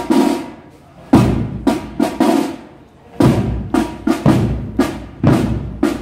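Procession drums, snare and bass drum, beating a slow repeating cadence: a group of three or four loud strokes about every two seconds, with a short pause between groups.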